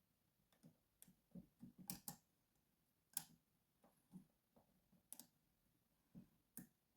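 Faint, irregular light clicks and taps of a flag pick working the pins inside a Mul-T-Lock interactive padlock, with a few sharper clicks among them, as the binding second pin is lifted toward its set.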